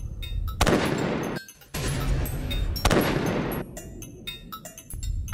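Rifle shots fired at an armoured vehicle's bullet-resistant windscreen in a ballistic test: three loud sharp reports about a second apart, each trailing off in a noisy echo.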